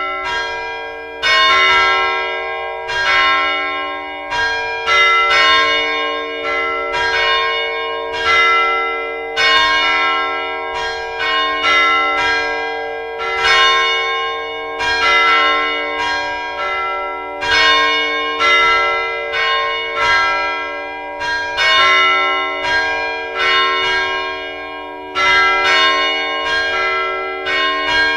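Several large bronze mission church bells ringing together, struck about once a second, each strike leaving a long hum at its own pitch that overlaps with the others.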